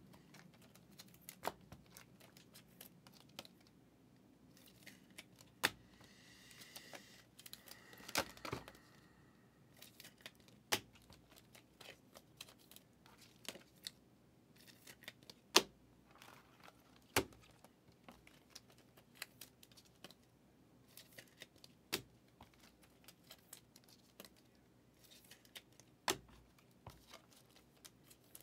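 Faint handling of trading cards and foil pack wrappers: a wrapper torn and crinkled between about 6 and 9 seconds in, and scattered sharp clicks and taps as cards are flipped, slid and set down on the table.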